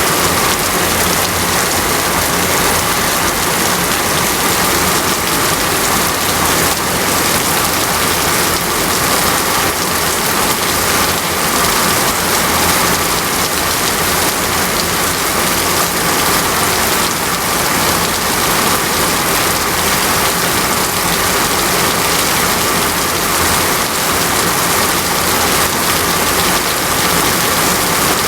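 Heavy rain falling steadily on a surface, a dense and even downpour that holds at the same loudness throughout.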